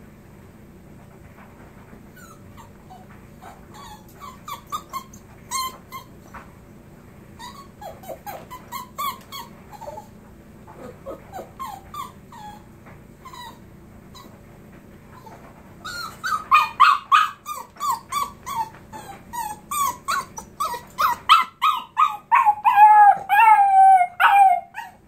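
Young puppy whining and yipping in short high cries, sparse and soft at first. About two-thirds of the way in it breaks into a quick run of louder yelps and howls, ending in a long howl that slides down in pitch.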